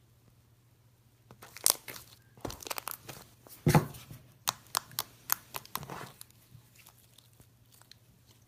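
Slime being squeezed and mixed by hand, giving a run of sharp pops and crackles for a few seconds in the middle.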